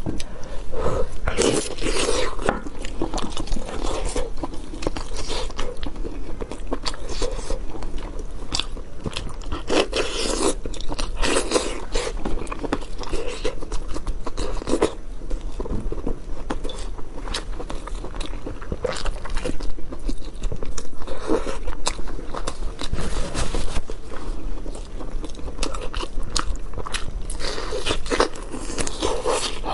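Close-miked eating of soy-braised pork hock pulled apart by hand: biting and chewing, with many short wet clicks and smacks.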